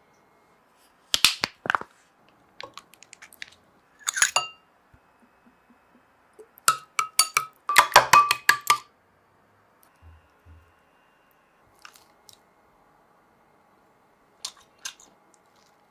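Scattered short clinks and taps of kitchen utensils and dishes. About halfway through comes a busy run of a metal spoon clinking against a glass bowl as it stirs a dressing.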